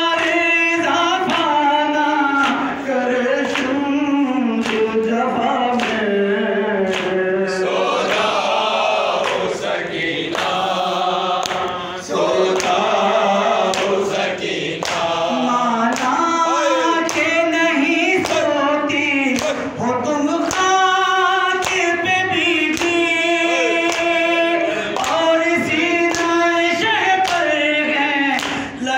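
A man sings an Urdu noha, a Shia mourning lament, into a microphone, and other voices join in. Regular hand slaps of chest-beating (matam) keep the beat under the singing.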